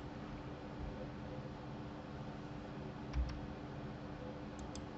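Faint clicks of a computer mouse and keyboard: one click about three seconds in and a quick double click near the end, over a low steady hum.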